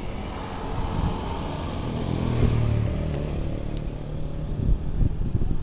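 Engine of a motor vehicle passing on the street, growing louder about two and a half seconds in and then fading, over steady traffic noise.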